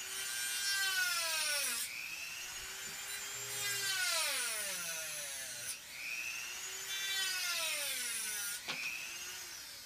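Dremel rotary tool with a cut-off wheel cutting through a wooden pencil. Its high motor whine drops in pitch each time the wheel bites into the wood and climbs back as the load eases, about three times over, and it fades near the end.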